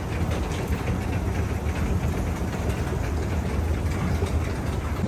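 Escalator running, a steady low rumble under a haze of mechanical noise.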